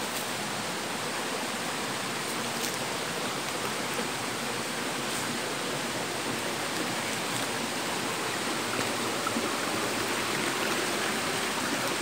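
Rocky forest stream running over boulders: a steady wash of water that grows slightly louder near the end.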